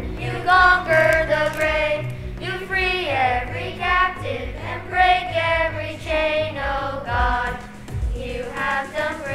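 Children's choir singing a worship song in unison, with instrumental accompaniment carrying a steady bass line underneath.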